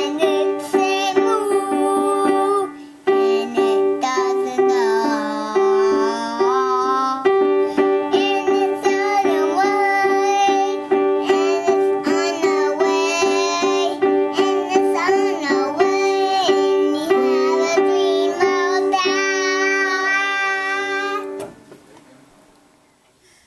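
Small child striking the same few notes over and over on an upright piano with both hands while singing along. The playing stops about two seconds before the end and the notes die away.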